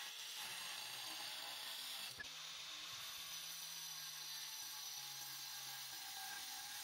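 Angle grinder with a thin cutting disc running and cutting, first through a white-faced board, then, after a brief break a little over two seconds in, into a block of wood, with a steady motor hum under the grinding.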